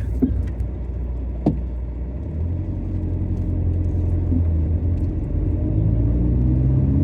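Skoda Octavia cabin noise while driving: steady engine and road rumble, the engine note rising slowly through the second half. About a second and a half in comes one sharp knock from the suspension, the clunk of a worn front anti-roll bar drop link.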